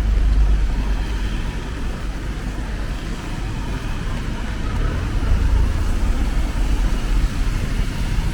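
City street traffic: cars going by with a steady low rumble and a hiss, swelling slightly near the start and again about five seconds in.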